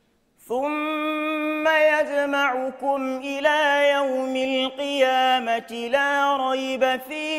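A young man reciting the Qur'an in melodic chanted style, starting about half a second in and holding long notes with ornamental turns in the melody.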